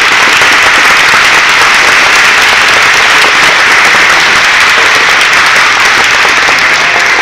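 Audience applauding loudly and steadily: a dense wash of many hands clapping.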